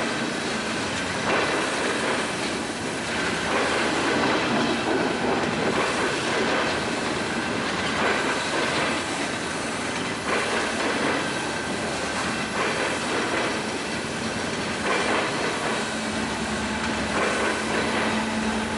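Railroad train rolling past, with steady wheel and rail noise and repeated clacks as the wheels cross rail joints.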